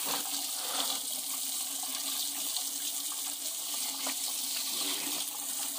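A steady stream of water pouring from above and splashing on a small wet dog's coat and the stone floor as she is rinsed off, with a faint steady low hum underneath.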